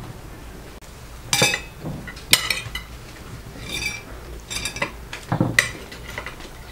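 Metal fork and spoon clinking against ceramic plates as food is served, about five separate clinks with a short ring after each.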